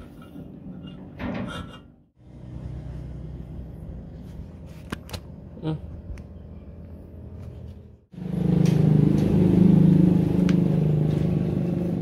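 A few metal clicks and knocks as the combine's grain auger is handled, then a steady hum. After a cut about eight seconds in, a combine harvester's engine running loud and steady.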